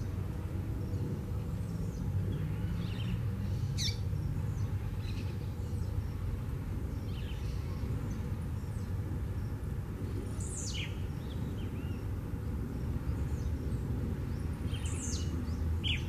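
Blue-black grassquit (tiziu) singing its short, sharply falling song three times, about every five to six seconds, with fainter high chirps in between. A steady low rumble runs underneath.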